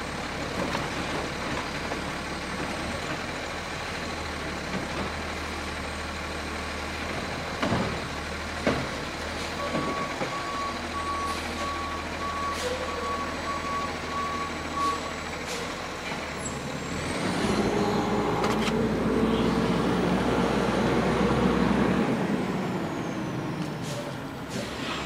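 Garbage truck's diesel engine running, with two knocks a little under 9 seconds in and a backup alarm beeping evenly for about five seconds. A brief air-brake hiss follows, then the engine grows louder for several seconds before easing off.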